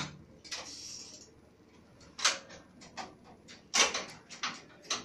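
Irregular clicks and knocks from a manual rotary screen-printing press being handled. There is a sharp tap about two seconds in and a cluster of knocks near four seconds.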